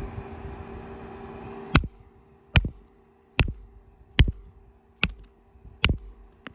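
A hammer striking a rock six times in sharp cracks, about one blow every 0.8 seconds: test blows to split the stone and see whether it is knappable, and it proves to be limestone.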